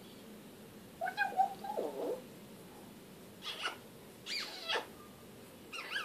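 African grey parrot calling: a lower, drawn-out call about a second in that drops in pitch at its end, then a few shorter, higher calls later on.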